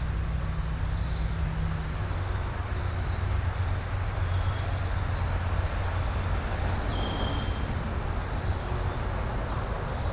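Steady low outdoor background rumble with a faint hiss, a low steady hum for the first two seconds, and a few faint high chirps.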